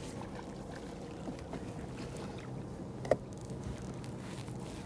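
Water lapping steadily around a small boat, with one sharp splash about three seconds in from a hooked spiny dogfish thrashing at the surface.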